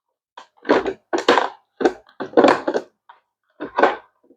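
Plastic hydroponic tower modules knocking and clattering as they are handled and pressed together, in about six short bursts.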